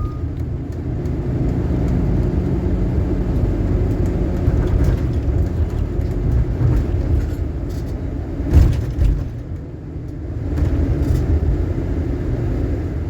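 Shuttle bus riding along, heard from inside: a steady low engine and road rumble, with a sharp knock about eight and a half seconds in.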